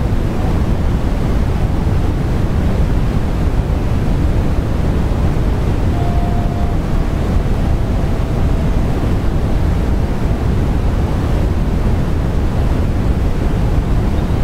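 Steady, deep rushing background noise, even and unchanging throughout, with a faint brief tone about six seconds in.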